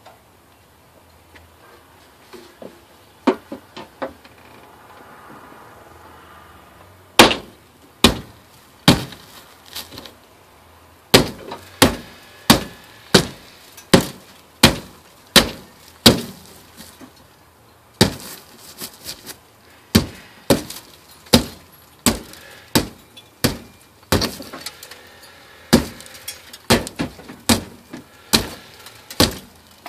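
Hand tool striking a car's sheet-metal body again and again to cut an access hole to the transmission: a few scattered blows, then a steady run of about one and a half sharp, ringing strikes a second with a short pause midway.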